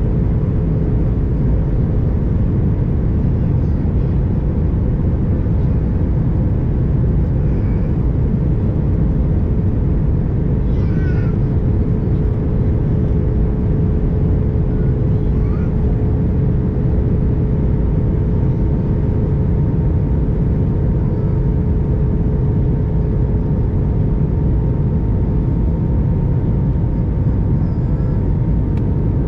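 Airbus A321 cabin noise at a window seat: the steady, loud roar of airflow and engines, with a steady hum tone running through it.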